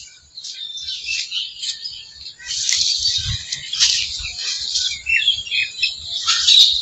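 Many small birds chirping and twittering together in a dense, overlapping chorus, with a run of quick separate chirps standing out about five seconds in.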